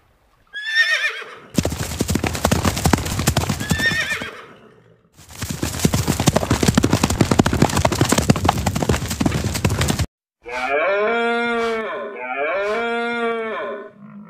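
A horse whinnies, then the hooves of a galloping herd of horses drum for several seconds, breaking off briefly around four seconds in. Near the end come two long, deep bellowing calls, each rising and falling in pitch.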